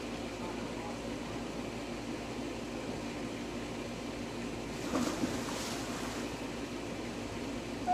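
A splash about five seconds in as a person jumps into a backyard swimming pool, over a steady background hiss.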